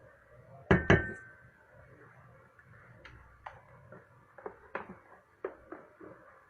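A spatula knocking against a mixing bowl while folding meringue into batter: two loud knocks under a second in, the second ringing briefly, then a string of lighter taps and scrapes.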